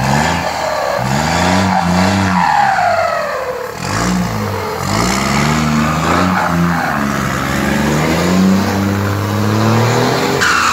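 Turbocharged Mercedes-Benz diesel truck engine revved over and over, its pitch rising and falling in about six swells. A higher turbo whistle slides down in pitch after some of the revs, from a 'pente' (comb) fitted in the turbo intake to make it whistle.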